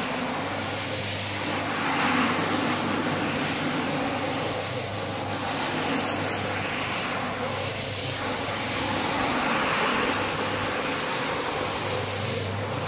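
Rotary floor scrubber running with a steady motor hum while its spinning brush scrubs wet, soapy carpet pile. The scrubbing hiss swells and eases about every four seconds as the machine sweeps back and forth.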